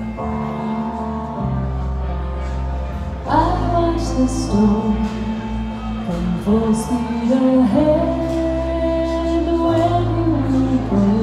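Live song on a Yamaha keyboard played as piano, with electric bass underneath; a woman's voice comes in singing about three seconds in and carries the melody.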